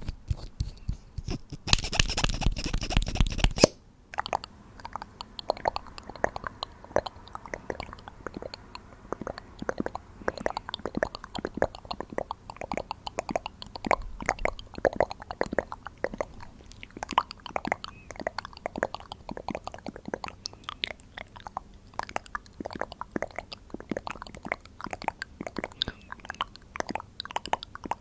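Makeup tools handled right at the microphone: a loud rush of crackling for about two seconds near the start, then a long run of crisp close-up crackles and taps.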